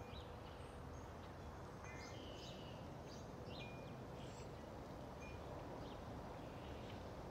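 Small birds chirping, with short chirps and brief whistles repeated several times, over a faint steady low rumble.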